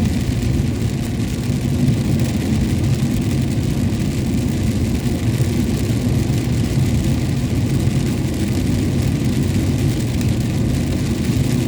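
A vehicle driving steadily in the rain: a constant low engine and road rumble under an even hiss of rain and wet road.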